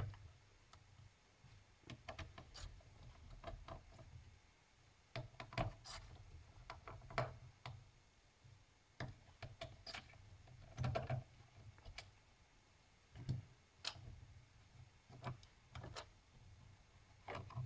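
Faint, scattered clicks and scraping of a small screwdriver backing out the heatsink screws of a laptop, with light handling of the cooling parts.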